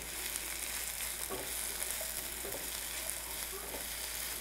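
Zucchini and mushrooms frying with a steady sizzle in a Uniflame non-stick frypan, with a few faint knocks against the pan.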